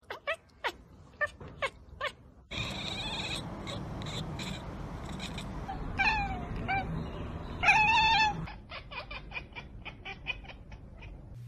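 Domestic cats chattering and calling: a few quick falling chirps in the first two seconds, then drawn-out meowing yowls around six and eight seconds in, the loudest near eight seconds, and a fast run of clicking chatter, about five a second, in the last three seconds.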